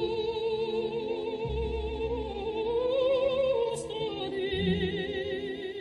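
Background music: operatic singing with strong vibrato on long held notes, the melody rising about halfway through.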